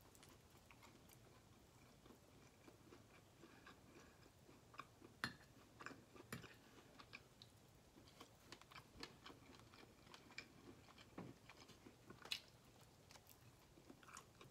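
Faint close-up chewing and mouth sounds of a person eating, with scattered small crisp clicks and crunches, the sharpest about 5, 6½ and 12½ seconds in.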